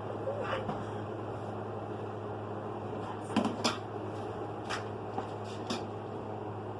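A few short, light knocks and clicks over a steady low hum, clustered about halfway through.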